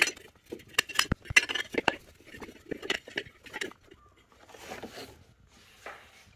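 A hand tool clicking and clinking against metal engine parts, a quick irregular string of sharp metallic clicks, about three a second, that dies away about four seconds in.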